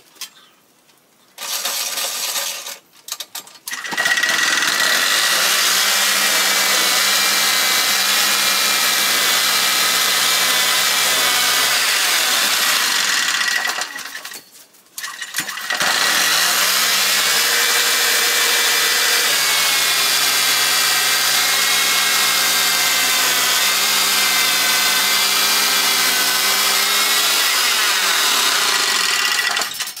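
Engine of a homemade bandsaw mill starting, then running steadily at full speed as the blade saws through a hickory log, in two long stretches that each wind down at the end.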